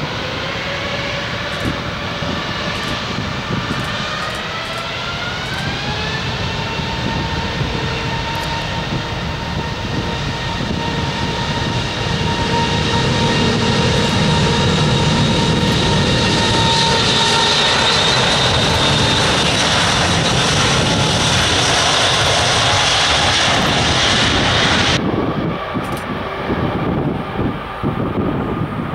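Airbus A380's four Rolls-Royce Trent 900 turbofans spooling up for takeoff: a whine rises in pitch over the first few seconds, then holds steady as the engines run at takeoff thrust, with the rumble growing louder. Near the end the high whine drops away abruptly, leaving a low, rough rumble as the jet rolls away.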